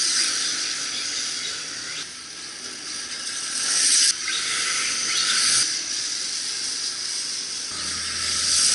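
Electric 1/10-scale RC drift car running on wet pavement: a high hissing whine from its motor, drivetrain and tyres that swells and fades several times as the throttle is worked.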